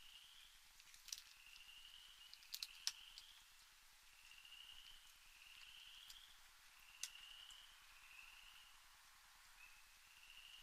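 A few sharp clicks and taps as raccoons feed on a wooden deck railing, over a faint rising call repeated about once a second in the background.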